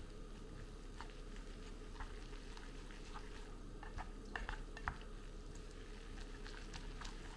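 Wooden chopsticks mixing instant noodles with chili sauce in a bowl: soft wet stirring with light clicks against the bowl, a handful close together about four seconds in, over a steady low hum.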